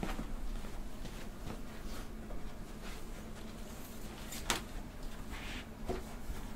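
Handling noises while band gear is set up: a few scattered clicks and knocks, the sharpest a single click about four and a half seconds in, over a low steady hum.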